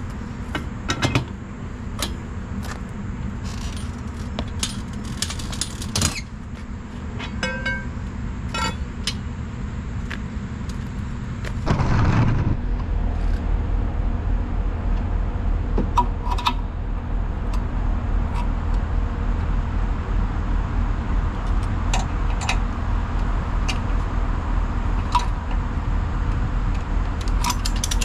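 Tow truck engine idling with a steady low hum that gets louder about twelve seconds in, while metal tow gear clinks and clanks in scattered sharp hits as a car is hooked up and strapped onto the wheel lift.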